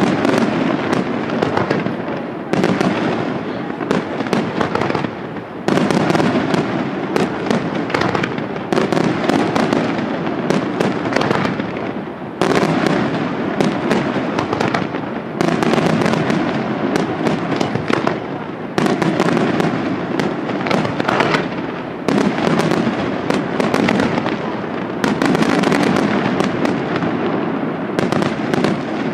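Aerial fireworks display: a continuous barrage of shell bursts and dense crackling stars, with a fresh loud volley about every three seconds.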